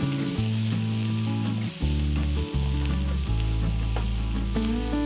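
Chopped onions sizzling and frying in hot sesame oil as they are stirred in the pan, sautéing toward golden brown. Background music with held low notes plays underneath.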